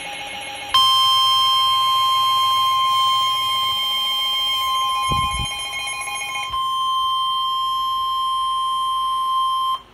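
NOAA Weather Radio's 1050 Hz warning alarm tone, a single steady tone that comes in under a second in and cuts off just before the end, announcing a severe thunderstorm warning. A second, lower steady alert tone from another receiver sounds alongside it and stops about two-thirds of the way through, and there is one brief low thump around the middle.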